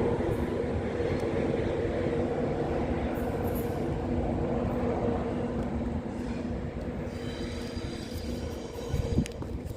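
Train passing and moving away: a steady, multi-toned running hum over rumble that slowly fades out.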